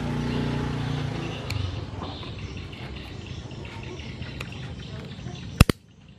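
Handling noise and sharp plastic clicks as a Yamaha Jupiter Z1's fuel pump assembly is fitted together by hand, with a click about one and a half seconds in and two loud clicks a fraction of a second apart near the end. A motor vehicle's engine hum fades out in the first second or so.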